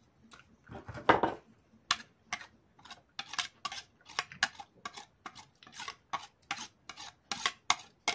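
A metal spoon clinking and scraping against a flat stainless-steel hand grater, knocking grated cheese off it: a short rubbing sound about a second in, then a run of sharp clinks, about three a second.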